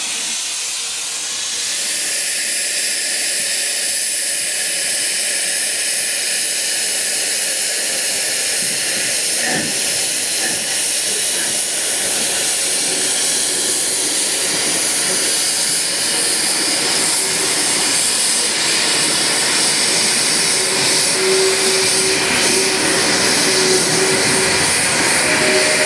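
LMS Fowler 4F 0-6-0 steam locomotive No. 44422 standing with steam escaping in a loud, steady hiss that grows slightly louder toward the end.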